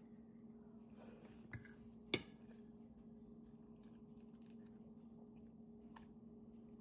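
A person quietly chewing a mouthful of rice and fried fish, over a steady low hum. A single sharp click about two seconds in is the loudest sound, with a softer tap just before it and another faint one near the end.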